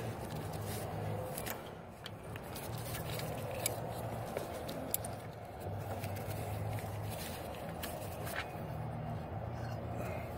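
A 27 mm socket and half-inch ratchet backing out a timing chain tensioner: a few scattered light metallic clicks and scrapes over a steady low hum.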